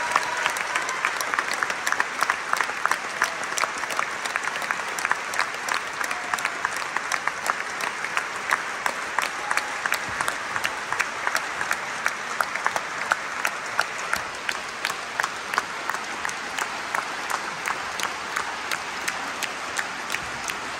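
Large concert-hall audience applauding steadily. From about halfway through, the sharp claps of one person close by stand out above the hall's applause.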